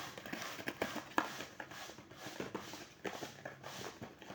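Small blind-box package being handled and opened: irregular rustling and crinkling of packaging, with scattered clicks and taps.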